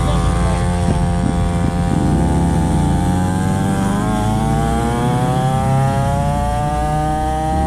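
Small two-stroke engine of a cheap mini dirt bike running hard. Its pitch dips briefly, then climbs steadily as the bike gathers speed, with a high, buzzy note.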